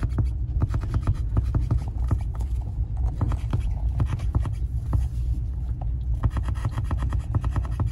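Vehicle driving down an icy, snow-covered road, heard from inside the cab: a steady low rumble with frequent crunching, crackling clicks as the tyres go over ice and snow.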